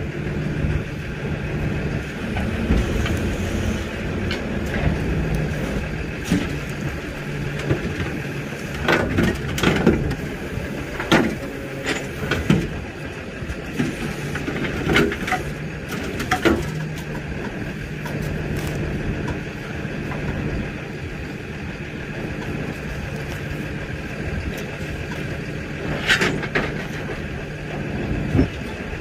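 Rollback tow truck's diesel engine idling steadily, with scattered sharp knocks and clanks: a cluster around the middle and another near the end.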